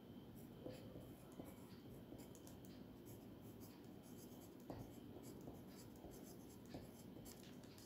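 Faint scratching of a freshly sharpened graphite pencil writing on a sheet of paper, with small ticks as strokes begin and the tip lifts.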